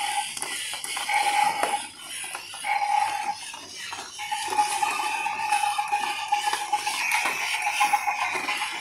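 Battery-powered walking King Kong toy running: its small motor and plastic gears whir with a steady whine that comes and goes, over a busy plastic rattle and clicking from the moving limbs.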